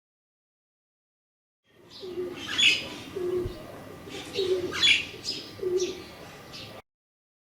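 Crows calling, short calls about a second apart, over a lower repeated note. The sound starts suddenly about two seconds in and stops suddenly near the end.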